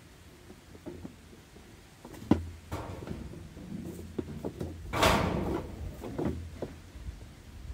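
A string of irregular knocks and clunks of things being handled, with a short rushing burst about five seconds in.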